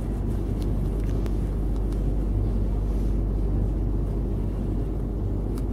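Steady low rumble inside the passenger saloon of a Bombardier Incentro tram, NET tram 209, with a few faint clicks and rattles.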